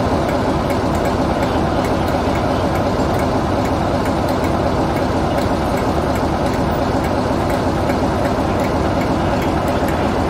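BR Class 45 'Peak' diesel locomotive idling steadily, its Sulzer twin-bank twelve-cylinder diesel engine running at a constant low speed.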